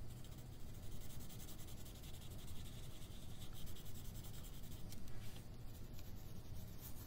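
Colored pencil shading on paper: quick, even back-and-forth strokes scratching over the sheet.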